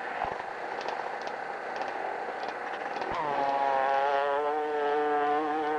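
Motorcycle engine: an indistinct engine noise, then about three seconds in a nearby dirt bike's engine opens up and holds at high revs under load as the bike climbs a steep hill.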